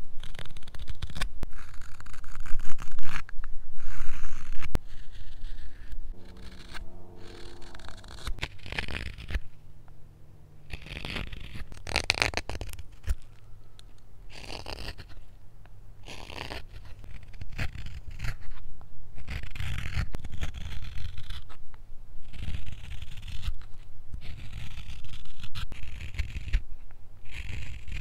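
Carving knife cutting wood in repeated short slicing strokes, each shaving scraping off the blade: first a straight knife, then a hook knife scooping out the bowl of a wooden spoon.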